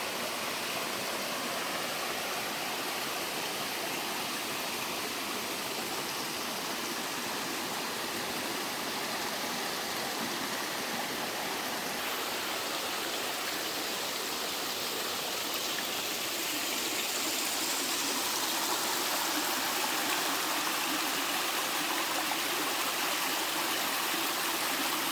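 Mountain stream water sliding and splashing down a sloping rock-slab waterfall: a steady rush of falling water that grows slightly louder about two-thirds of the way through.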